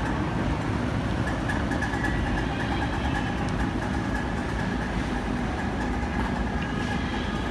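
Steady low rumble of background noise with a faint high hum over it, even and unbroken throughout.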